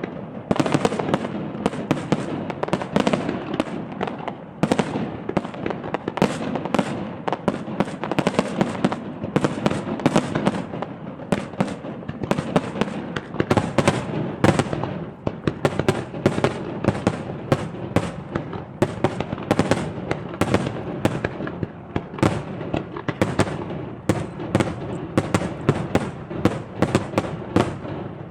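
Fireworks show: a dense, continuous barrage of shell bursts and crackling, several bangs a second over a rolling rumble.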